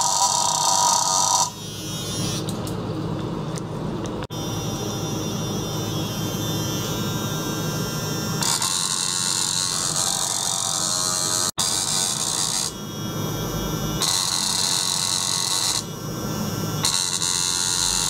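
Small circulation pump running, pushing water through tubing into a test tank, with a steady electric buzz whose brighter, hissier upper part switches on and off every few seconds.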